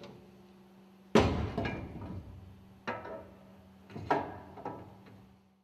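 Heavy steel support halves clanking against each other and the metal platform as they are fitted around a piston rod: four metallic knocks, the first and loudest about a second in, each ringing briefly.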